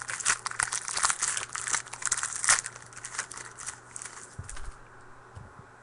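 Trading-card pack wrapper crinkling and tearing as a pack of football cards is opened and its cards handled; the crackling dies away about three-quarters of the way through.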